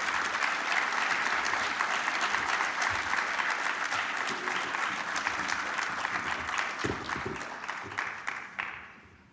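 Audience applauding at the end of a talk, a dense patter of many hands clapping that fades out near the end.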